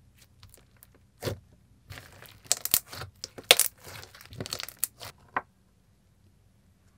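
A hand pressing and squishing thick pink clay slime against a table, making a run of sticky crackles and pops. They are loudest from about two to five seconds in and stop about five and a half seconds in.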